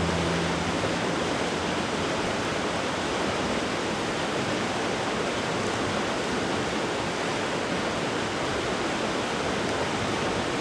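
Brook water rushing steadily, an even full-range hiss of flowing water.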